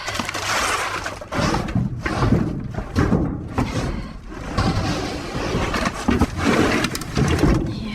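Junk being shifted and handled inside a metal dumpster: irregular rustling, scraping and knocking of debris.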